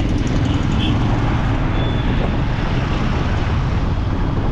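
Steady rumble of a vehicle being driven through traffic, engine and road noise together.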